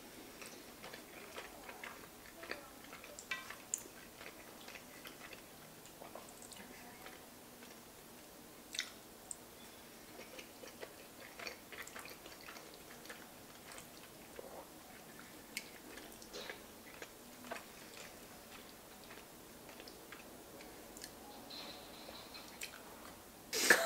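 A person chewing mouthfuls of braised pork and pasta: quiet, wet mouth sounds with scattered small clicks.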